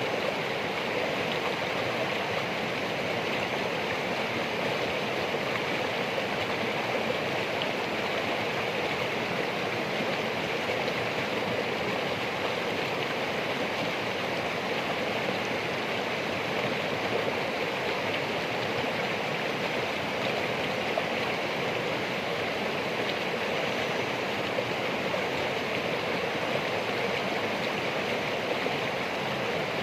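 Steady rushing and babbling of a flowing stream, even and unbroken throughout.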